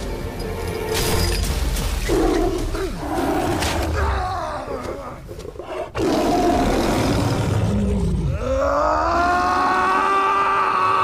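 Film soundtrack: a tiger snarling and roaring, then a man's long held yell starting about eight seconds in, over a dramatic music score.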